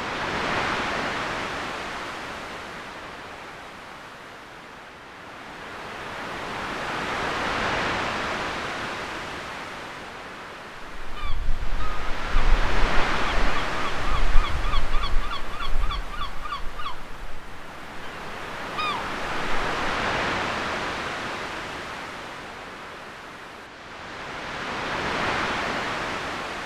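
Ocean surf, waves washing in and out in slow swells about every six seconds. Around the middle comes a louder stretch with a deep rumble, and a bird calls over it in a quick run of short repeated cries.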